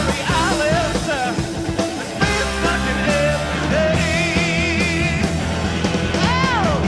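Rock music playing, its lead melody bending and wavering in pitch.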